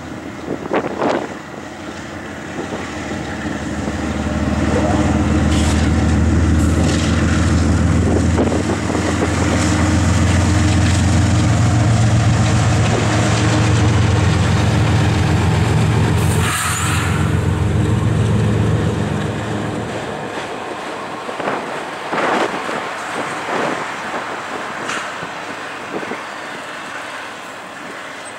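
GE ES44AC diesel-electric locomotive with a twelve-cylinder GEVO engine passing, its engine loud with a deep hum that builds, peaks as it goes by and falls away about twenty seconds in, with a short hiss partway through. Then autorack freight cars roll slowly past, the train coming to a stop, with clicking and creaking from wheels on rail.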